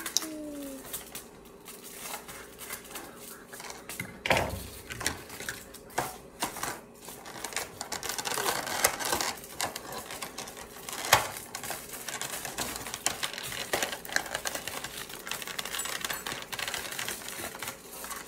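Clear plastic toy packaging being handled and opened: a run of quick clicks and crinkles, with two louder knocks, one about four seconds in and one about eleven seconds in.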